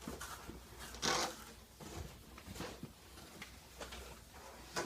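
Rustling and scraping of packaging being handled during an unboxing, in short rasps, the loudest about a second in.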